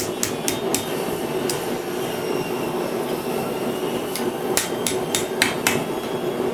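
Hammer blows on hot steel at the anvil, finishing a forged spoon: four quick strikes at the start, a single one, then a run of half a dozen about four seconds in. Under them runs the steady roar of the gas forge's burner jet.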